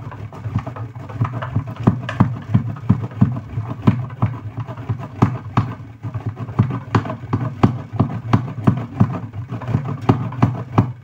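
Bar soap being grated on a stainless steel box grater: a steady run of grating strokes, about three a second.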